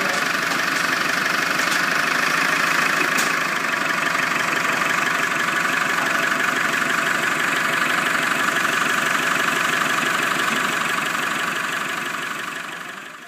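Land Rover 300Tdi 2.5-litre four-cylinder turbodiesel, newly swapped into a Defender, running steadily at idle with diesel clatter. It fades out near the end.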